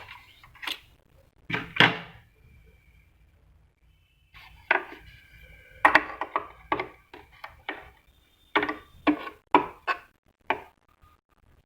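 Hard parts of a thermal receipt printer knocking and clicking as it is taken apart by hand: a dozen or so irregular sharp knocks, some with a brief ringing, coming faster in the second half.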